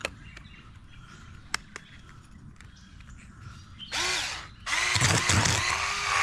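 Handheld electric fish scaler starting up about four seconds in, then running against the scales of a large sheepshead with a loud rattling buzz and a steady motor tone; a few light clicks come before it.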